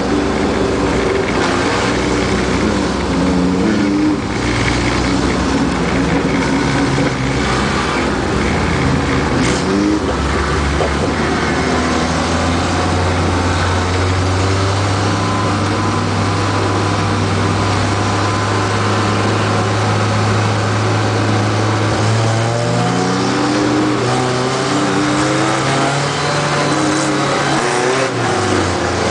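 Light-truck race truck's engine heard from inside its cab, running at part throttle with its pitch rising and falling as the driver works the throttle; a steady low drone sits underneath from about twelve seconds in until near the end.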